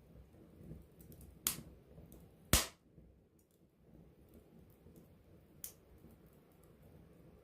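Campfire wood burning, with three sharp pops from the burning wood, the loudest about two and a half seconds in, over a low steady rustle of flame and faint small crackles.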